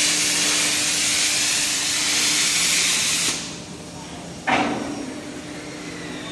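Electric welding arc on a furnace body, giving a steady hiss that cuts off about three seconds in. A short sudden burst follows about a second later.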